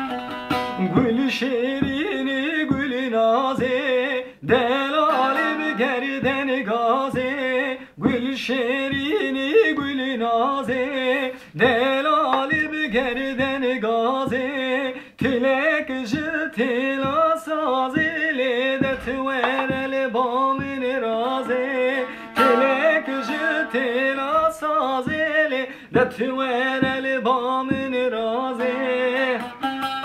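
A man singing a Kurdish folk song in a wavering voice while accompanying himself on a bağlama (long-necked saz), its strings plucked in quick, rapid strokes; the song pauses briefly between phrases every few seconds.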